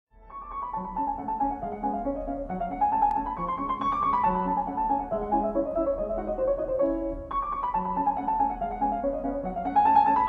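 Background piano music: a classical-style melody in quick, steady notes, the phrase starting over about seven seconds in.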